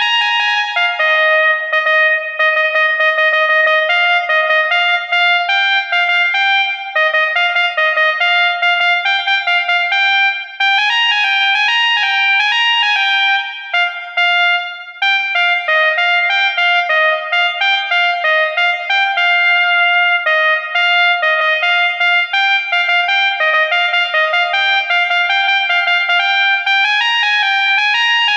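Basuri 'telolet' multi-tone air horn playing a melody, several horn tones sounding together and switching abruptly from note to note, with a few short breaks.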